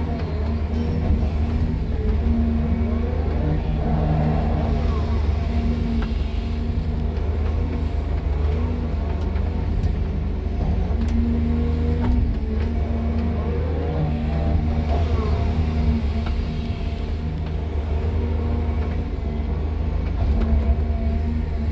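Excavator's diesel engine running steadily, heard from inside the cab, a deep hum whose tone shifts as the machine works. Twice a short rising and falling whine rides over it.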